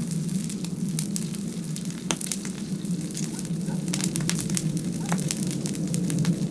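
Wood-and-charcoal fire crackling with many sharp, irregular pops as salted mackerel sizzles on a grill over it, above a steady low hum.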